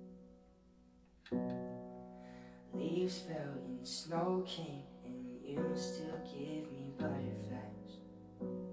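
A slow piano ballad played on an electronic keyboard. Sustained piano chords are struck every one to two seconds, and a deep bass note joins near the end. A young man's voice sings a slow melody over the chords from about three seconds in to past seven seconds.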